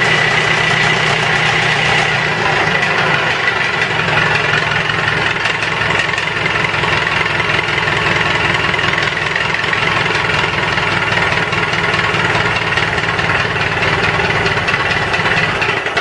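International Harvester 454 tractor's C157 four-cylinder gasoline engine idling steadily after a cold start.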